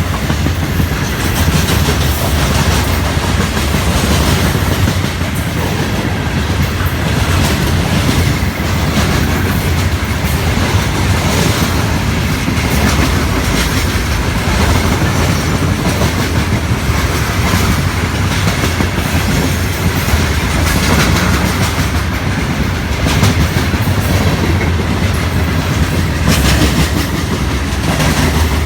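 Florida East Coast Railway freight train rolling past close by: a steady loud rumble of steel wheels on the rails with a running clickety-clack.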